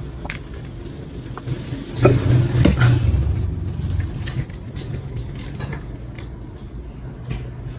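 Low rumble of passing road traffic, swelling for about a second around two seconds in, with scattered light clicks and taps.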